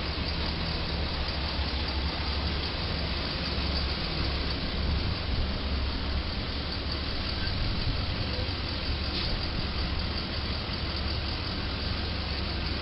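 Heavy-duty tow truck's diesel engine idling and running slowly as the truck creeps forward, a steady low engine sound over a constant hiss.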